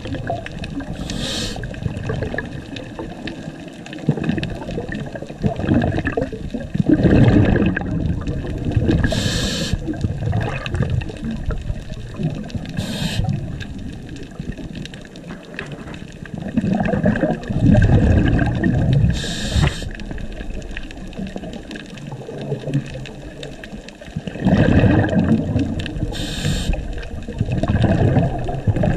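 A scuba diver breathing through a regulator, heard underwater. Each breath in is a short high hiss, and each breath out is a longer surge of bubbling, several breaths apart.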